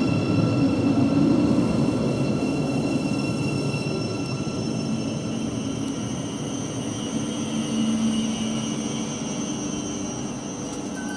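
Thameslink Class 700 electric multiple unit slowing into the platform: wheel rumble that fades gradually, with a faint electric whine that drops slightly in pitch as the train slows.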